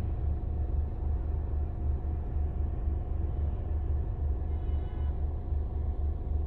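Low, steady rumble of a car heard from inside its cabin while it sits in slow traffic.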